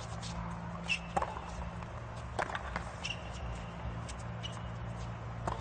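Tennis ball struck with racquets in a baseline rally on a hard court: sharp pops about a second apart, with short squeaks of shoes on the court and a steady low stadium hum underneath.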